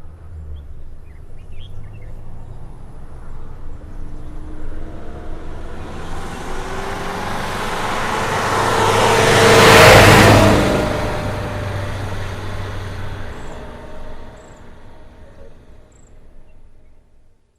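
School bus passing by slowly: its engine hum and road noise grow steadily louder to a peak about ten seconds in, then fade away as it moves off.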